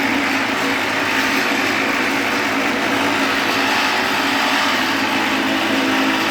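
Garage-door window cutting machine running steadily: a constant motor hum under a dense, even hiss, with no let-up or change in pitch.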